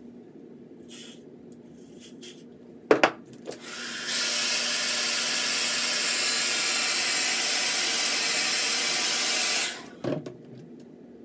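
A few faint short hisses of aerosol hairspray, a sharp double clack just before three seconds in, then a hair dryer blowing with a steady loud rush for about six seconds before it is switched off, drying freshly sprayed wig edges.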